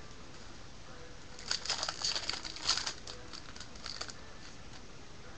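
Wrapper of a Panini Prizm trading-card pack being torn open and crinkled, a flurry of crackles from about one and a half to four seconds in.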